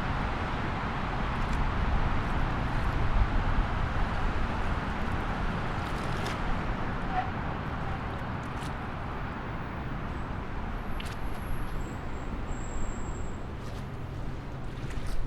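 Road traffic: a steady rumble and hiss of passing vehicles, with a few faint clicks and brief high chirps in the second half.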